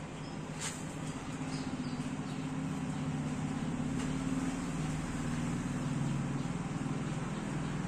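A motor vehicle engine running steadily, its low hum growing a little louder about a second in, with a faint click or two.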